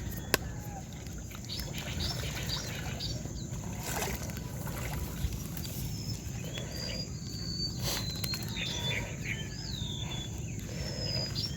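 Small birds chirping repeatedly in short, quick rising and falling notes over a steady low outdoor rumble. A sharp click comes just after the start, and two brief noisy rushes about four and eight seconds in.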